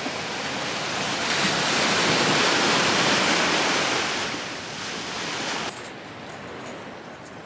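Ocean surf: a wave breaking and washing in, a steady rush that swells to its loudest about two seconds in and then fades.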